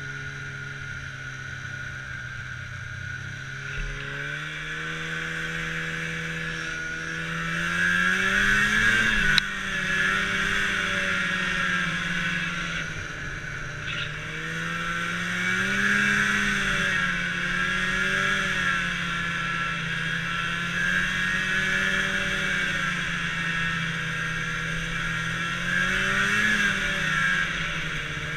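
Snowmobile engine running under way, its pitch rising and falling with the throttle: a long climb from about four to nine seconds in, and shorter surges near sixteen and twenty-six seconds. A steady high hiss runs over it, with one sharp click about nine seconds in.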